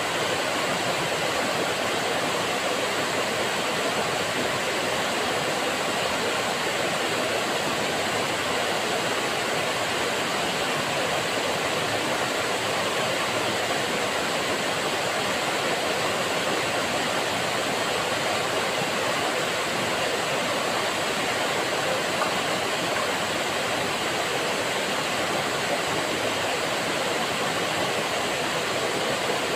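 Waterfall pouring over a rock face into a pool: a steady, unbroken rush of falling water.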